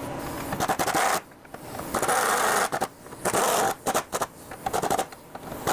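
A handheld power tool running in the bolts of a new front engine mount in several short bursts of about half a second each, with short pauses between them.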